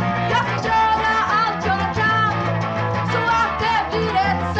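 A rock band playing, with electric guitar and bass guitar under a woman's sung vocal.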